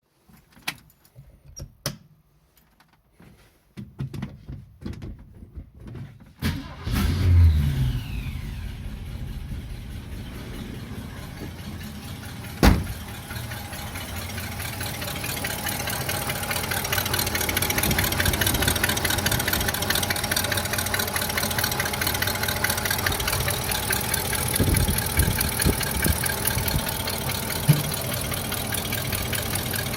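Car engine starting up after a few seconds of scattered clicks, catching with a brief surge about seven seconds in and then running steadily at idle, with one sharp knock partway through. The owner is chasing a noise from the left side of the engine.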